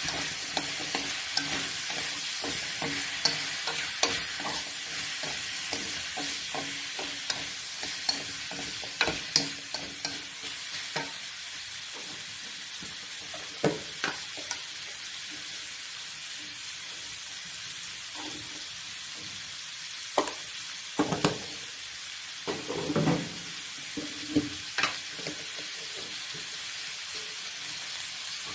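Sliced squash sizzling as it stir-fries in a metal wok, with chopsticks clicking against the pan as it is turned. The clicks come thick and fast for the first ten seconds or so, then sparser, with a few louder knocks about twenty seconds in.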